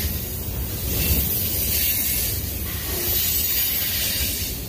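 Union Pacific freight train's cars rolling past close by, coil steel cars on steel rail, giving a steady low rumble under a high hiss.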